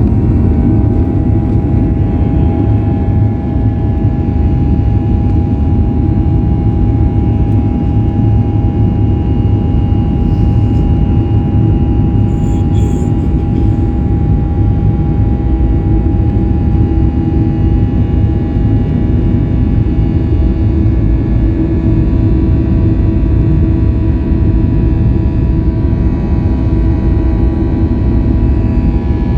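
Jet airliner's engines running at high thrust during the takeoff: a loud, steady rumble with constant whining tones on top.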